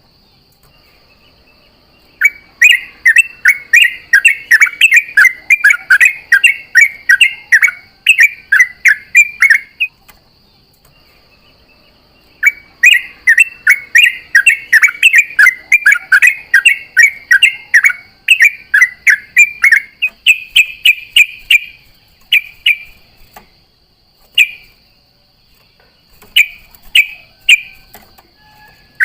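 Yellow-vented bulbul (trucukan) singing long, fast runs of bubbly chattering notes, two runs of about eight seconds each, then a few shorter phrases. A thin, steady high-pitched tone runs underneath.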